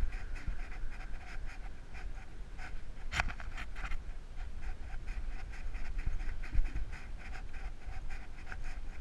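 A dog panting in a quick, even rhythm, close to a camera strapped to its back, over a low rumble.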